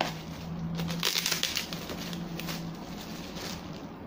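A cardboard product box and its packaging being handled and opened: rustling and scraping, loudest about a second in.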